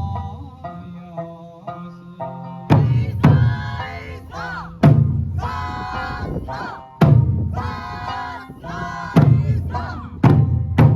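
Okinawan Eisa music: a sung folk melody with heavy drum strikes landing every one to two seconds.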